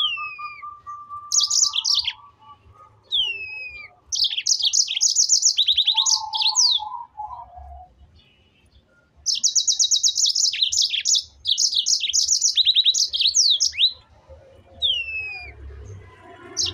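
A songbird singing: rapid high trills alternating with short downward-sliding whistles, in phrases of one to four seconds with brief pauses between them.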